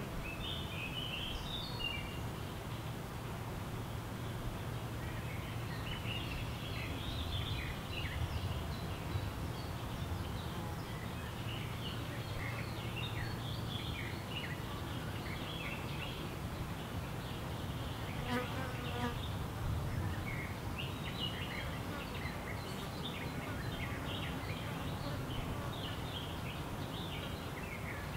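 Forest birdsong: many small birds chirping and twittering at a high pitch throughout. A quick run of notes comes about two-thirds of the way through, over a steady low hum.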